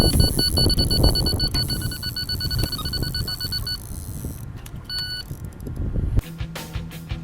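Electronic carp-fishing bite alarm beeping rapidly, about six beeps a second for nearly four seconds, then one more short beep: line being pulled off by a taking fish. Wind gusts rumble heavily on the microphone underneath, until music comes in near the end.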